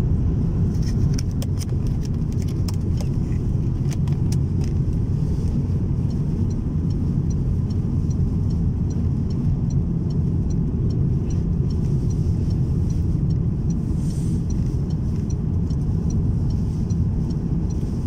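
Car driving through a blizzard on a snow-covered road, heard from inside the cabin: a steady low rumble of engine, tyres and wind. A faint regular ticking comes in about six seconds in.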